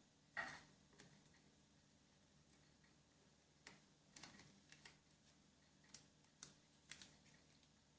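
Faint, scattered clicks and taps of the thermostat's small plastic parts being handled and pressed into place, about ten sharp clicks spread irregularly, most of them in the second half.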